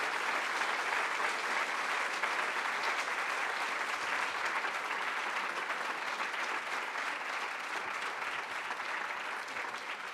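A large audience applauding steadily, the clapping easing a little toward the end.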